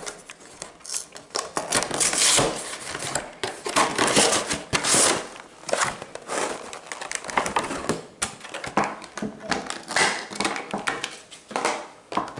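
Cardboard collection box being opened and its clear plastic blister trays slid out and handled: irregular rustling, scraping and sharp clicks of cardboard and thin plastic.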